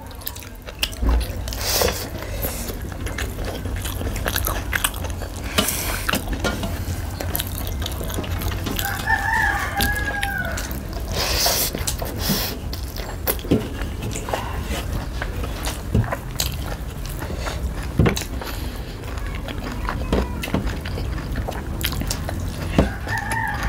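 People eating by hand: chewing and lip-smacking with scattered short clicks, over a steady low rumble. A rooster crows in the background twice, about nine seconds in and again near the end.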